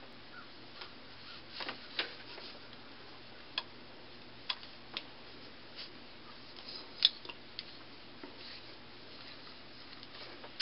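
Quiet handling of a metal curling iron as it is wiped down with a terry cloth rag: faint rubbing and a handful of scattered light clicks and taps.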